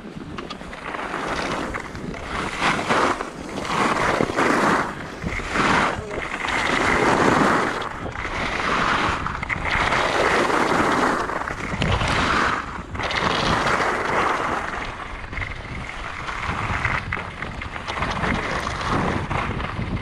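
Skis scraping and carving over the snow of a ski piste, with wind buffeting the microphone; the scraping swells and fades every second or two.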